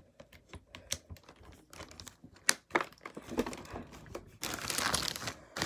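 Something being crumpled in the hands: scattered crackles at first, then a dense, continuous crinkling from about four and a half seconds in.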